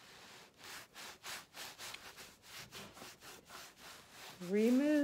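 A microfiber cloth wiped back and forth over a cutting board, a run of short rubbing strokes about three a second.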